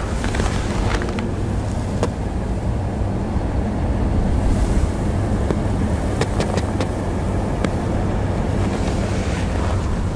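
Nissan Murano's 3.5-litre V6 idling steadily, heard at the tailpipes as a low, even hum, with wind noise on the microphone.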